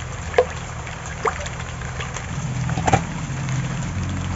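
Water sloshing and splashing in an aluminium basin as large pieces of pangas fish are rubbed and washed by hand, with a few short sharp knocks. A steady low drone runs underneath.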